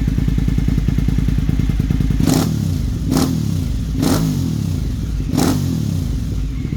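KTM 990 Super Duke's V-twin idling, then four quick throttle blips about a second apart, each revving up sharply and dropping back to idle.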